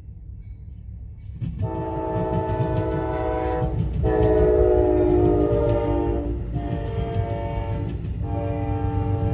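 Amtrak locomotive horn sounding a chord of several notes in four blasts, long, long, short, long, the grade-crossing warning signal, over the low rumble of the approaching train growing louder.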